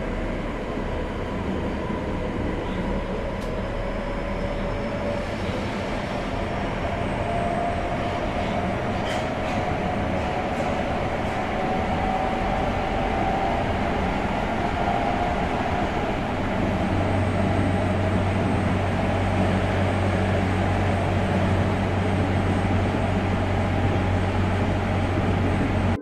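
Tokyo Metro Marunouchi Line subway train running: a steady rumble with a faint whine rising slowly in pitch through the first half, and a low hum joining about two-thirds of the way through.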